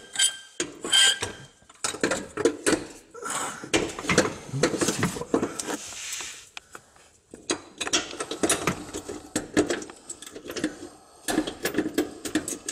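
Irregular metal clinks and taps of bolts, nuts and washers being fitted by hand at a car driveshaft's carrier bearing and flange.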